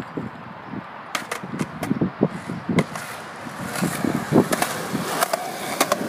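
Skateboard wheels rolling on a concrete sidewalk, with sharp clacks along the way, getting louder in the second half.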